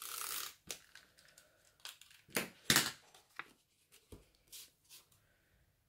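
Paper rustling and crinkling as hands press and fold a small patterned-paper envelope: a half-second rustle at the start, then a run of short crinkles and a soft tap on the craft mat.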